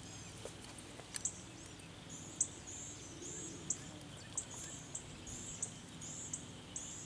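A bird chirping in short, high phrases repeated about every two-thirds of a second, over a faint outdoor background, with a couple of faint clicks about a second in.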